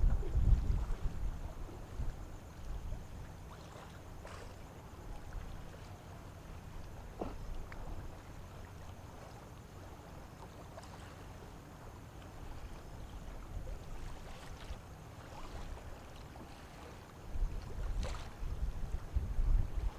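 Wind buffeting the microphone in low rumbling gusts at the start and again near the end, over a low steady machinery hum across the harbour.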